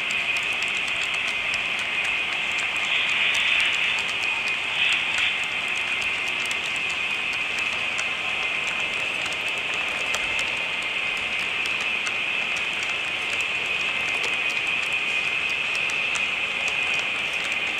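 HO scale model freight cars rolling past on the track, their wheels making a steady high-pitched whir with many small rapid clicks over the rail joints.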